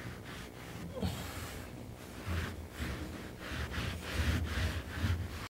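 Hands rubbing and pressing jute carpet padding down onto a car floor pan: a rough brushing rustle in quick repeated strokes, with soft low thumps that grow stronger in the second half.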